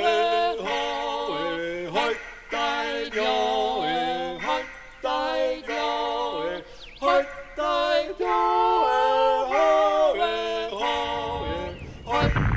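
Unaccompanied yodeling: voice leaping quickly between held notes in short phrases. A low rumbling noise comes in near the end.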